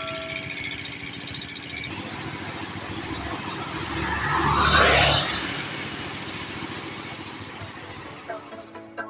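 Engine running steadily at the roadside, with a vehicle passing by that swells up and fades away about four to five seconds in.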